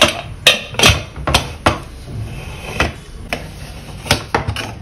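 Stainless-steel pressure cooker lid being fitted and locked shut: a string of sharp metal clanks and clicks as the lid and handles are worked into place.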